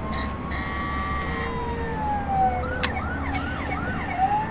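Battery-operated toy vehicle's electronic siren sounding from a button press: a slow wail that rises and falls, then quick repeating yelps about three a second, with a sharp click partway through.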